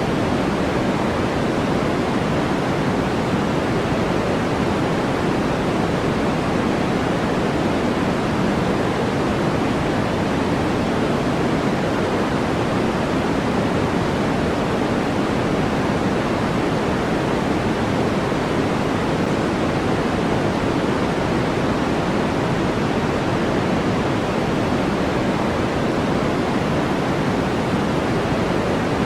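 Continuous generated white-noise sleep track: a steady, even hiss with no change in level. It is fuller in the lower-middle range and thinner in the highs.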